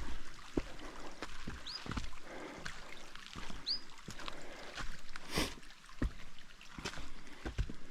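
Irregular knocks and scuffs of footsteps on a mountain trail over a steady hiss, with the loudest knock about five seconds in. A bird gives a short high chirp twice.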